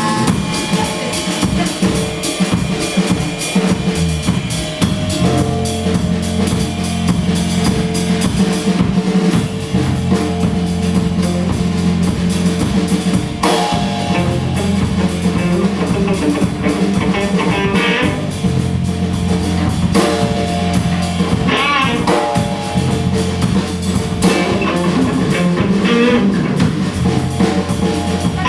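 A rock band playing live: drum kit, electric guitar and bass guitar in a steady, loud song.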